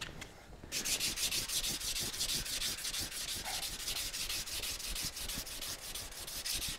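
Hand sanding block with sandpaper rubbing over a primed metal car fender, quick even back-and-forth strokes starting just under a second in. This is block-sanding primer under a guide coat to show up scratches and low spots before paint.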